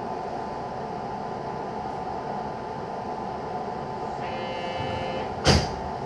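Steady electrical hum inside a stationary JR West 221-series train, with a brief high electronic tone a little after four seconds in, then a single loud thud about five and a half seconds in, typical of the carriage's sliding doors shutting.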